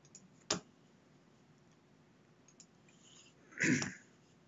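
A single sharp click about half a second in, a few faint ticks, and then, the loudest thing here, a short breathy noise close to the microphone, about four tenths of a second long.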